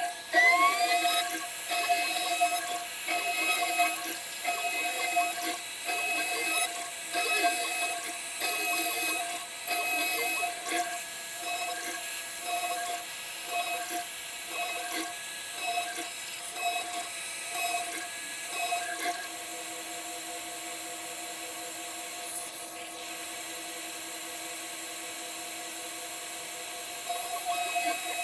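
CNC 6040 router spindle whining steadily while its cutter machines an aluminium plate in repeated short bursts of cutting. A brief rising whine sounds just after the start. Cutting stops about two-thirds of the way through, leaving only the steady spindle whine, and resumes near the end.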